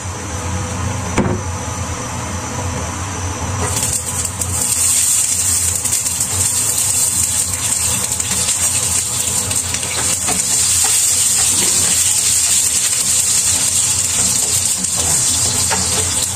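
Garlic cloves frying in hot oil in a nonstick pan, a steady sizzle that starts about four seconds in and keeps up, over a constant low hum.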